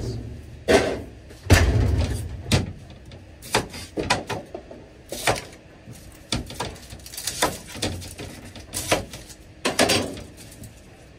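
A cupboard or drawer door thumps shut about a second and a half in, followed by irregular knocks and clicks of a knife on a wooden chopping board as a red onion is handled and cut.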